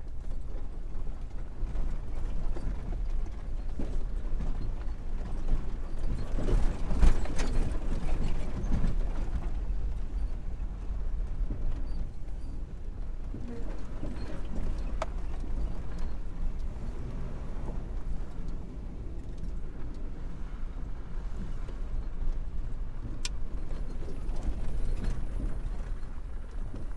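Jeep Wrangler JK driving over a rough dirt track, heard from inside the cabin: a steady low rumble of engine and tyres with knocks and creaks from the body and suspension over the bumps. It is loudest from about six to nine seconds in.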